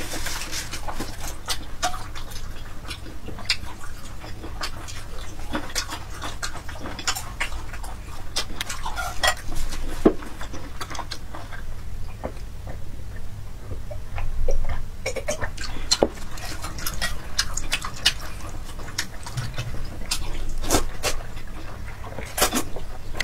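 Close-miked eating sounds of a person chewing a braised pork and glass-noodle stew: irregular wet chewing, lip smacks and mouth clicks, with a couple of louder smacks. A low steady hum runs underneath.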